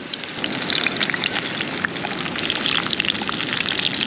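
Beer-battered rainbow runner frying in a pan over a campfire: a steady sizzle with fine crackling.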